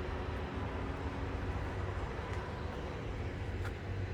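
Steady low rumbling background noise, with two faint clicks, one about two and a half seconds in and one near the end.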